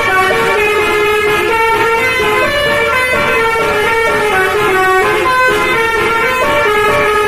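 Basuri telolet horn, an air horn of several tones driven by an MS9 melody module, playing a tune of quick stepped notes, each held well under a second, without a break.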